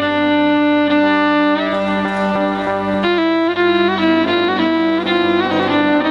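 Instrumental interlude from a Tajik folk ensemble, with no singing: a melody of long held notes that breaks into quicker runs about halfway through, over a steady low drone.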